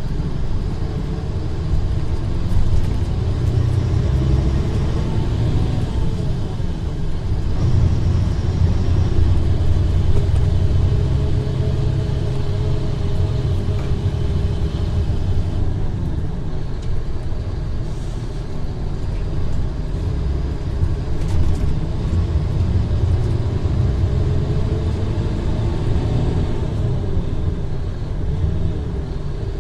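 Mercedes-Benz O500R bus's rear-mounted diesel engine running with a steady low rumble. Its pitch rises and falls several times as it revs up and eases off.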